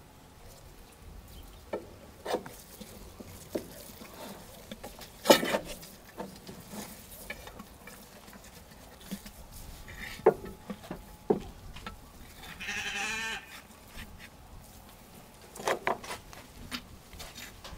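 Scattered metal clicks and knocks as a steel rotisserie spit and its clamp bracket are worked loose and pulled out of a whole roast lamb, the loudest knock about five seconds in. About two-thirds of the way through, a bleat lasting about a second.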